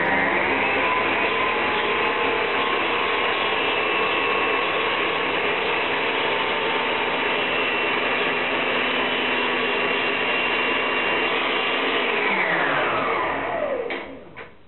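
Electric stand mixer with a whisk attachment beating in a stainless-steel bowl: the motor comes up to speed at the start and runs with a steady whine. About twelve seconds in it is switched off and its pitch falls away over a couple of seconds, followed by a few knocks as the bowl is handled.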